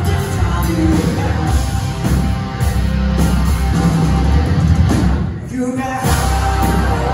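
Live rock band playing through a venue PA: electric guitars, bass and drums with singing. The band stops briefly about five seconds in, then comes back in.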